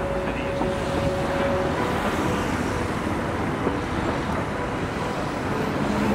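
Outdoor street ambience: a steady wash of road traffic noise, with a faint held tone in the first couple of seconds.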